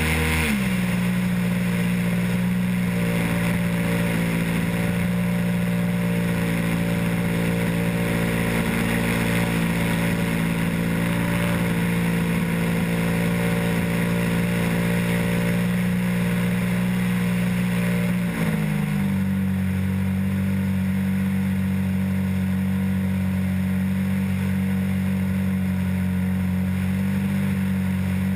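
RC airplane's motor and propeller running steadily, heard close up through the plane's onboard camera, with a hiss of air rushing past. The note drops just after the start as the throttle comes back and rises a little about eighteen seconds in.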